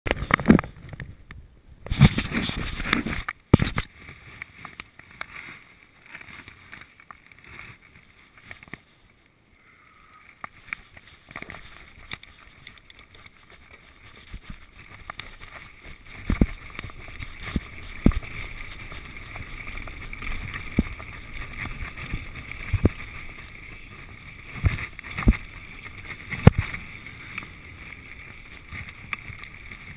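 Giant Trance 1 mountain bike ridden over a dirt forest trail, heard through a GoPro's waterproof housing: steady tyre and rolling noise that builds as the bike picks up speed, with sharp knocks and rattles from the bike over bumps. In the first few seconds there are loud bumps and scraping from the camera being handled.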